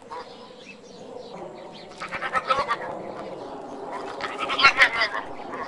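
Goat bleating: two pulsing calls, about two seconds in and again near the end.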